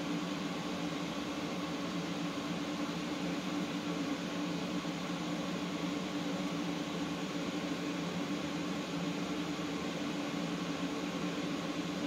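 Steady hum of a running electric motor, two low tones over an even hiss, with no change.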